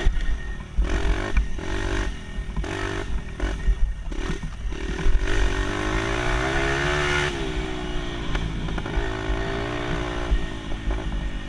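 Motorbike engine under riding: the throttle is stabbed open and shut several times over the first few seconds, then held for a longer pull with the engine note rising to a peak about seven seconds in and easing back down. Low wind rumble on the microphone sits under it.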